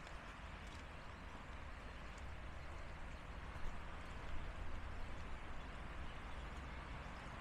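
Steady rush of flowing stream water in a winter flood, with a deep low rumble underneath.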